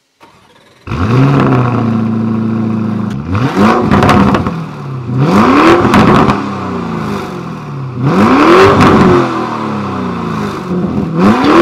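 Lamborghini Urus S twin-turbo 4.0 L V8 through an Akrapovic titanium exhaust. It starts about a second in with a short flare, settles to idle, then is revved four times, each rev climbing and dropping back to idle, the last one just peaking near the end. Very loud.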